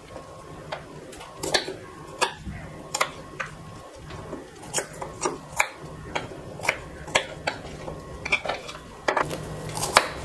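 Kitchen knife cutting shallots on a small wooden chopping board: irregular sharp knocks of the blade against the wood, roughly one to two a second.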